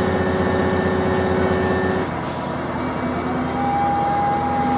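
Mobile crane's engine running steadily, its note changing about two seconds in, with two short hisses of air and a thin steady tone joining in the second half.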